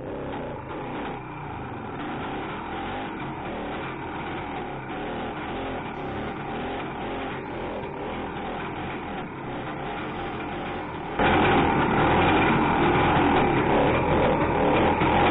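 A vintage Ski-Doo Olympic 320 snowmobile's two-stroke engine running steadily as the sled travels along the trail. About 11 seconds in, loud rock music cuts in suddenly over it.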